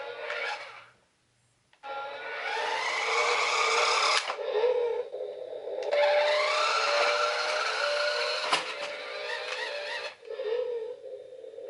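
Electronic sound effects from a VTech Switch & Go Dinos Turbo Bronco toy car's small speaker during a turbo charge-up: rising sweeping tones and jingle-like notes. They break off into a short silence about a second in, with a few sharp clicks later on.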